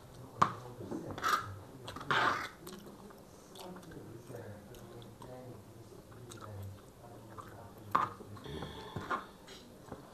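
Close-up chewing of chow mein noodles and chicken chilli, with a few sharp clicks of forks and spoons on the tray, the loudest about half a second in and near eight seconds.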